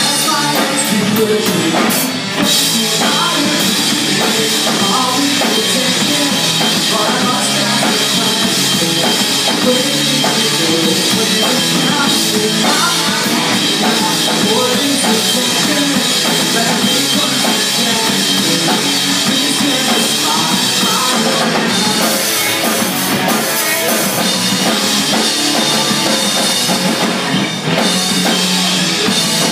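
A rock band playing live and loud: drum kit, electric guitars and bass guitar, a dense, steady wall of sound.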